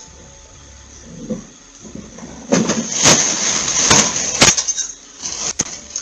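A rough scuffling noise lasting about two and a half seconds, with several sharp knocks or bangs inside it and one more shortly after.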